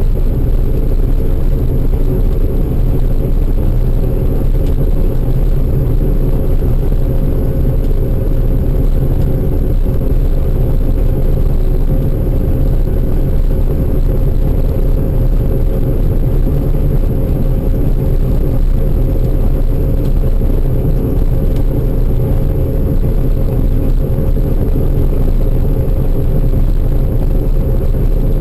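Large engine running steadily at constant speed: a loud, even low drone with a faint steady hum above it, typical of harvest machinery at work.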